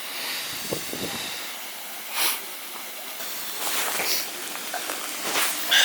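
Water still running under a mostly frozen waterfall, a steady rushing hiss. A few short, louder rasps break in about two, four and five and a half seconds in.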